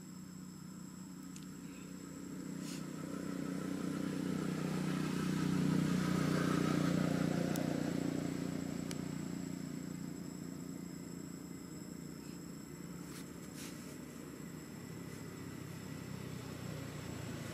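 A motor vehicle passing by unseen: a low engine hum grows louder, peaks about halfway through, then fades away.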